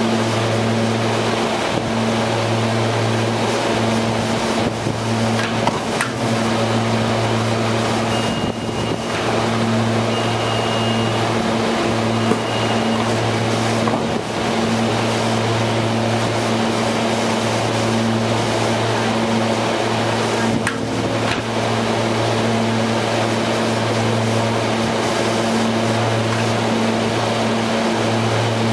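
SEPTA Silverliner electric commuter railcar standing at a platform, its onboard equipment giving a steady low hum. Three short high beeps sound between about 8 and 13 seconds in.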